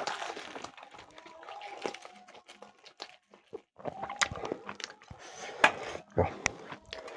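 A dog eating a puri it has just been given: scattered crunches and clicks of chewing and biting.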